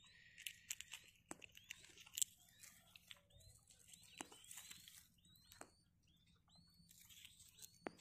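Faint high peeping of newly hatched quail chicks in the nest: a string of short chirps, roughly one or two a second, over soft crackling of dry grass and eggshell being handled.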